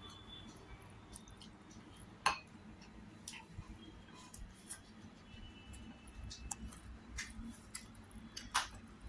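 Eating by hand: scattered sharp clicks and smacks of chewing, and fingers working rice on a plate, with two louder clicks about two seconds in and near the end.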